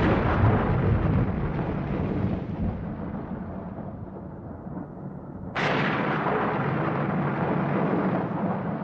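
Thunder, twice: a sudden crack just as it begins and another about five and a half seconds in, each trailing off into a long rolling rumble that slowly fades.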